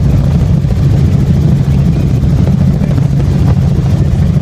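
Helicopter engine and rotor running loud and steady, with a strong low hum.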